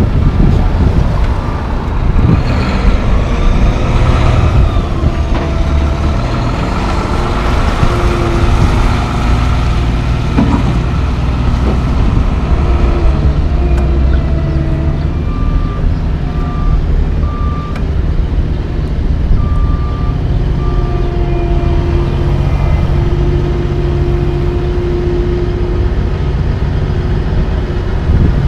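Heavy diesel engines of tandem dump trucks running and pulling away. About halfway through, a reversing alarm beeps in two short runs of steady, evenly spaced beeps.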